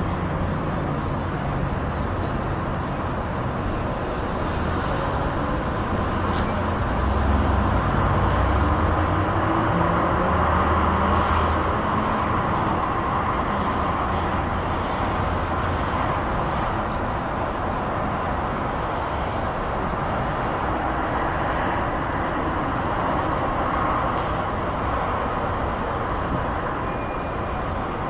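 Continuous traffic noise from a distant busy motorway: a steady wash of tyre and engine noise that swells and eases as vehicles pass. A low rumble is heavier in the first ten seconds or so.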